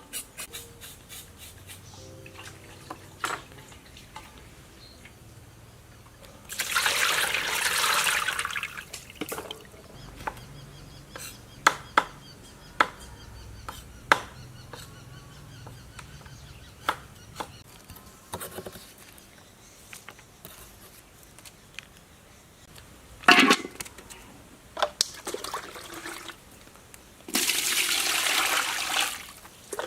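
Water pouring in two spells of about two seconds each, with scattered clicks and knocks from handling in between.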